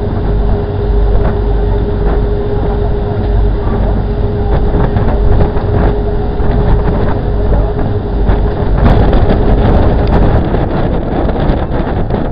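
Boat's engine running steadily, heard from the deck with wind rumbling on the microphone; a steady hum in the sound stops about nine seconds in.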